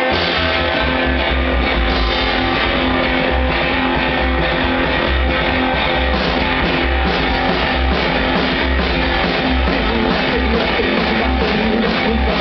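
Live rock and roll band playing: upright bass, electric guitar and drums, all coming in together at the start after a count-in.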